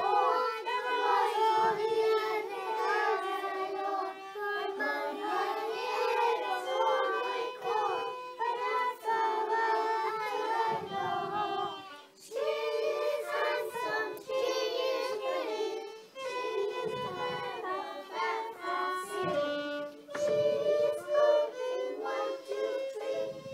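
Young children singing along to a fiddle playing a traditional Irish tune, with a brief pause about halfway through.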